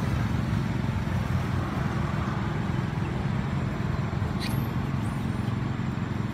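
A steady low engine hum, like a motor vehicle running, with a few short high chirps from about four seconds in.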